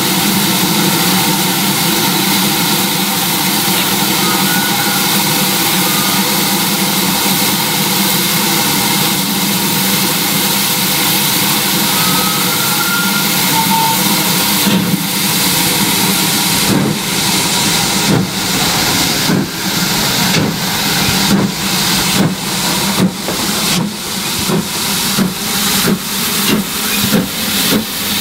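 GWR small Prairie 2-6-2 tank locomotive 5526 standing with a loud, steady hiss of escaping steam. About halfway through it starts away: its exhaust beats come slowly at first and then quicken as it gathers speed, over the hiss of its open cylinder drain cocks.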